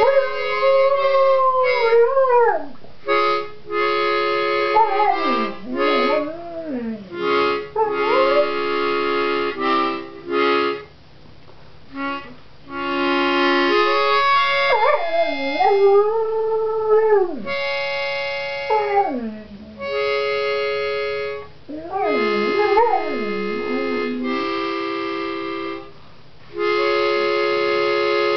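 A dog howling along to a harmonica: long wavering howls that slide up and down in pitch, in about four bouts, over harmonica chords played in short blocks. The harmonica ends on a long held chord near the end.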